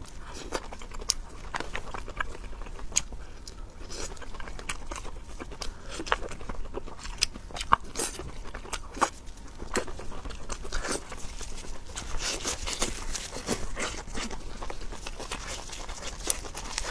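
Close-miked biting and chewing of skewered seafood and perilla leaves, with many sharp, irregular crunches.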